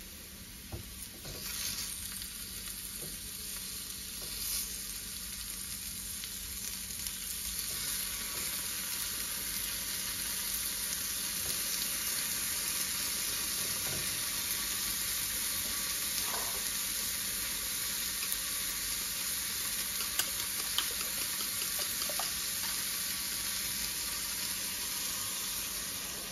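Chopped mushrooms sizzling steadily as they fry in a non-stick frying pan, with a few faint clicks as the food is handled.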